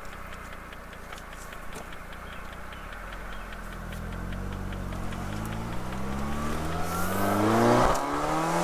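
Saturn Sky's 2.4L Ecotec four-cylinder engine pulling hard as the car accelerates, its pitch and loudness climbing for about four seconds, then the revs drop near the end. Wind noise from the open top runs underneath.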